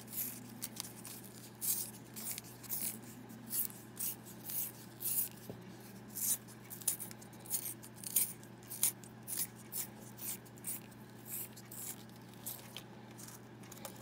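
Small metal handheld pencil sharpener's blade shaving a paper straw as the straw is twisted in it, cutting it into a spiral: a short, dry scraping rasp repeated about twice a second.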